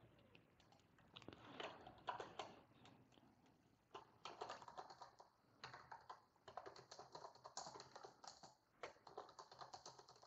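Faint typing on a computer keyboard: quick runs of key clicks with short pauses between words.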